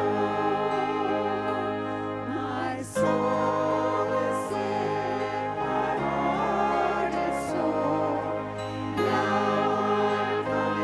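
Church music: voices singing a hymn over sustained accompaniment, the bass and chords changing every couple of seconds.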